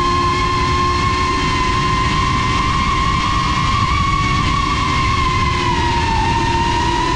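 Small FPV drone's brushless motors and propellers running, a steady high whine over rushing prop wash, the pitch rising slightly and then dipping about six seconds in.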